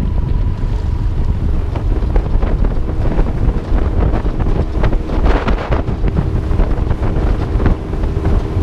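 Strong wind buffeting the microphone over choppy river water, with waves slapping and knocking against a small boat's hull.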